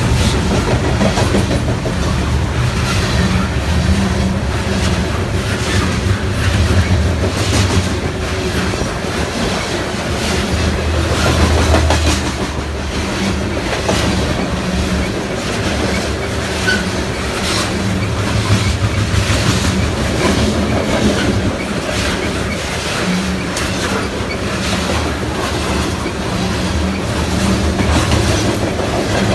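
Freight train of open-top coal hopper cars rolling past: a steady, loud rumble of wheels on rail with repeated clicking as the wheels cross rail joints.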